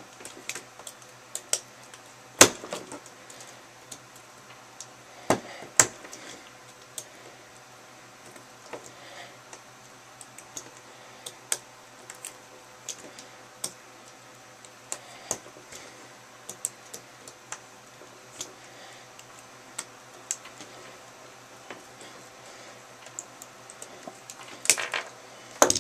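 Irregular small clicks and taps of a plastic 12-gauge shotgun shell being handled and set up against a cutting tool, with two sharper knocks in the first few seconds.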